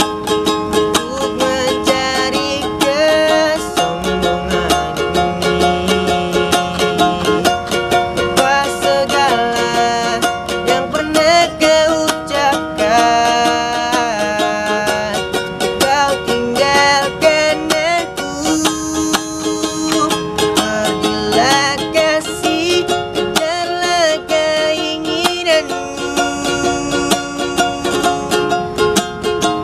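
A teenage boy singing a song in Indonesian while strumming steady chords on a small ukulele.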